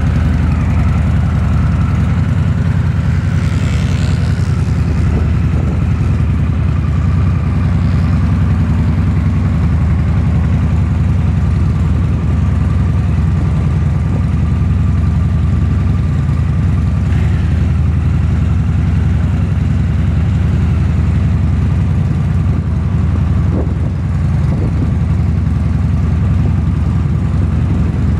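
Two Harley-Davidson V-twin motorcycles, a Sportster S and a custom cruiser, idling steadily side by side with a deep, even rumble.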